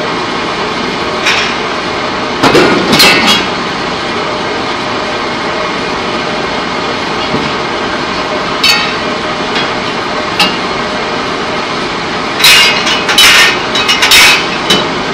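Loud, steady machinery noise in a pipe-coating plant, broken by sharp metal-on-metal clanks and bangs at irregular intervals: a group about two and a half seconds in, a couple of single knocks mid-way, and a dense run of clanks near the end.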